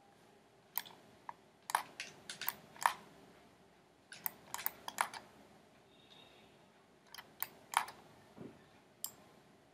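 Scattered clicks of a computer mouse and keyboard, coming in small clusters of a few quick clicks with short gaps between.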